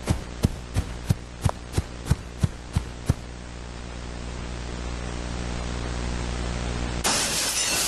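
Rapid sharp knocking, about three knocks a second, stops about three seconds in, over a steady electrical hum and static. About seven seconds in, a window's glass shatters loudly.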